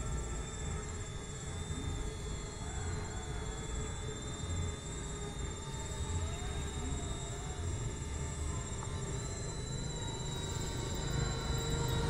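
Small quadcopter drones' propellers buzzing steadily as they hover, a high whine made of several held tones that drift slightly in pitch, over a low rumble.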